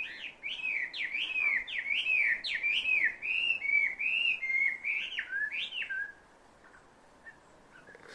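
An unidentified bird calling: a quick run of loud, clear whistled notes, about two a second, each sliding in pitch, heard as sounding like 'barbecue'. The series stops about six seconds in.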